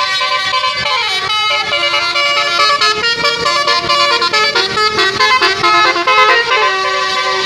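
Indonesian tour bus's 'telolet basuri' multi-trumpet musical horn playing a quick melody: a string of bright horn notes stepping up and down in pitch several times a second.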